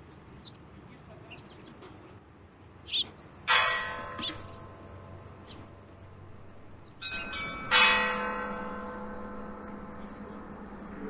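Orthodox church bells being rung: one stroke about a third of the way in, then a quick cluster of strokes a little past halfway, each left ringing and slowly dying away. Birds chirp faintly in the first half.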